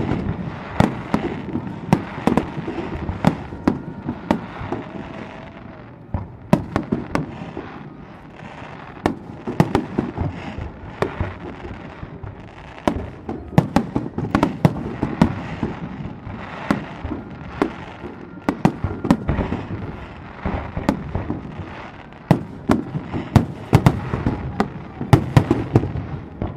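Fireworks display: rapid volleys of aerial shell bursts and crackle, dozens of sharp bangs coming in clusters every second or two, with echoing rumble between them.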